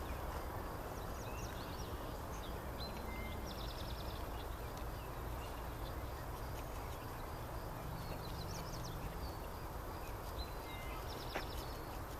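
Open-meadow ambience: a steady low rumble and hiss, with distant birds giving short high chirps and quick trills now and then, and a single faint click near the end.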